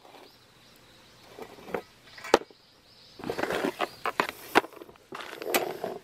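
Steel wire snare cable with its coil spring being handled and set down on a wooden board: rattling and scraping with a few sharp metallic clicks, busiest in the second half.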